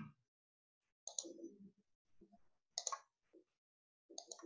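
Faint computer mouse clicks: three quick double-clicks about a second and a half apart.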